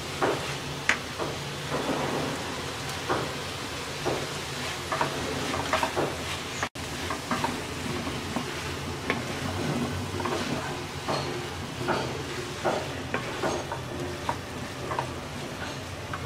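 A wooden spatula stirs a cabbage, potato and pea stir-fry in a nonstick wok, with irregular scrapes and taps against the pan over a soft sizzle.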